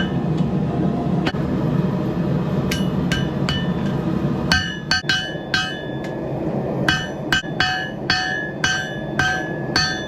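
Hand hammer striking hot steel on an anvil, forging the blade of a cleaver made from an old mower blade: about twenty blows in irregular runs, each with a short metallic ring, sparser in the first half. A steady low rushing noise runs underneath.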